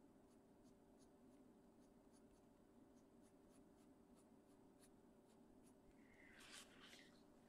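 Very faint scratching of a Caran d'Ache Pablo coloured pencil drawing short shading strokes on paper, heard as light ticks over a steady low hum. A brief, slightly louder scratchy sound comes about six seconds in.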